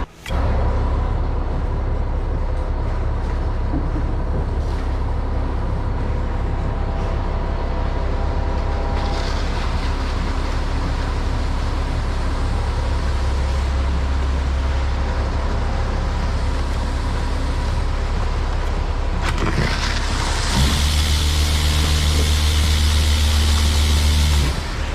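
Concrete mixer truck's diesel engine running steadily. Near the end it gets louder for about four seconds, with a hiss on top.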